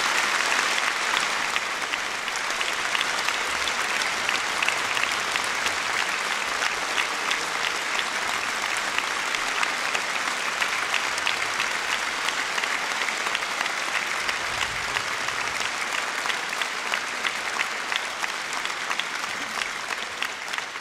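Large audience applauding: a dense, steady wash of many hands clapping.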